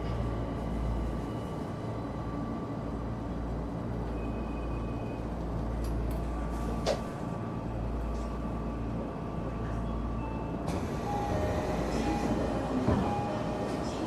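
Steady low rumble and hum of an electric commuter train, with station or carriage noise over it. There is a sharp click about halfway through, and near the end a few short tones and a knock.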